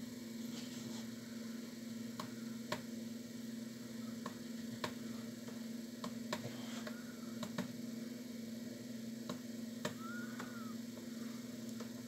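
Faint, irregular computer mouse clicks, roughly one or two a second, over a steady low hum.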